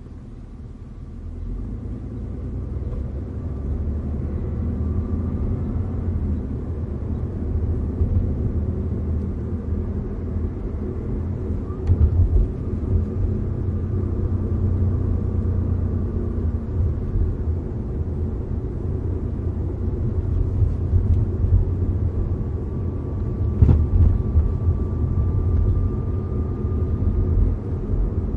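Cabin noise inside an Audi A4 on the move: a steady low rumble of road and engine that builds over the first few seconds. Sharp knocks come about 12 seconds in and again near 24 seconds, and a faint whine rises slightly in pitch near the end.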